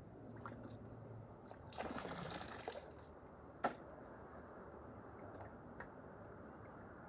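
Water sloshing briefly in a gold pan, a swish of about a second, followed by a single sharp click.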